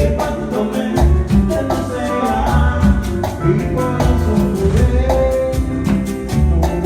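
Latin dance music played loud through a sonido sound system during a sound check, with a steady beat, heavy bass and a singing voice.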